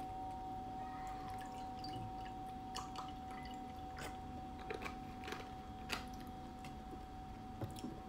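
A steady, pure ringing tone, like a sound-healing drone, under scattered light clicks and taps from a juice carton being opened and handled and a glass being set down.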